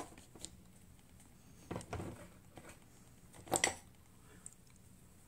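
Makeup items being handled and set down on a table: a soft knock with a rustle about two seconds in, and a sharper click, the loudest sound, a little after three and a half seconds.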